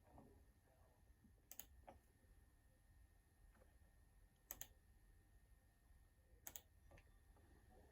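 Near silence broken by a few faint, sharp clicks a couple of seconds apart.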